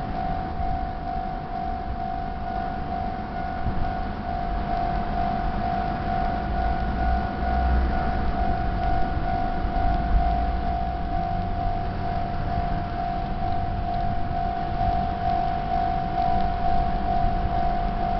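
Japanese railway level-crossing warning bell ringing steadily, one tone repeating in quick, even pulses, the signal that a train is approaching. A low rumble swells under it around the middle.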